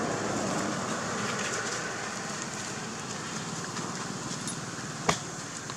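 Steady outdoor background noise, with one sharp click about five seconds in.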